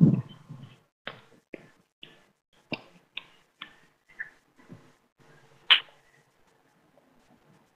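A low thud, then scattered short clicks and taps, about one every half second, the loudest a sharp click near the end, over a faint steady hum.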